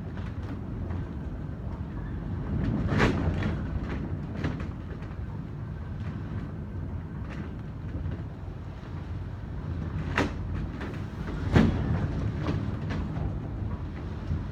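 Typhoon wind: a steady low rumble, broken by sharp knocks or bangs about three seconds in and twice more near the end, the last the loudest.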